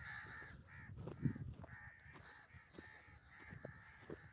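Crows cawing repeatedly, faint, with a low thump about a second in.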